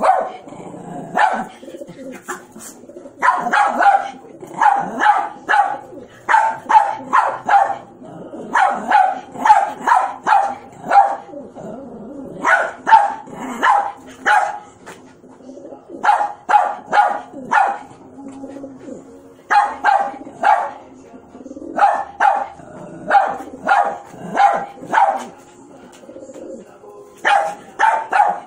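Small dog barking in quick runs of several sharp barks, with short pauses between runs.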